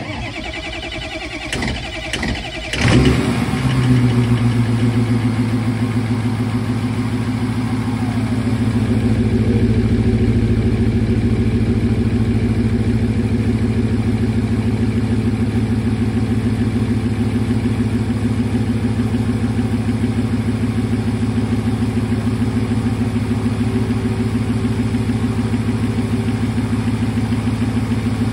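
2004 Ford 6.0 Power Stroke V8 turbodiesel cold-starting with only one or two working glow plugs: it cranks for about three seconds, catches, and settles into a steady idle. A whine falls in pitch about eight seconds in.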